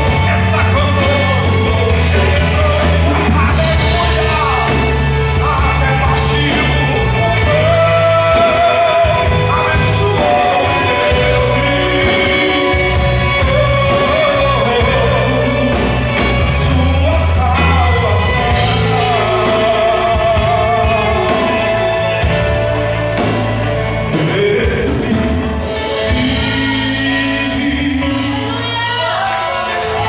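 A live Christian worship band playing a song, with keyboard, electric guitars, bass, a drum kit and acoustic guitar under a singing voice.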